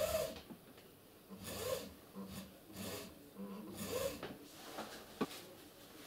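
Plastic oil bottle handled and rubbed against hands and the tabletop: a few short scraping scuffs about a second and a half apart, then a sharp click about five seconds in.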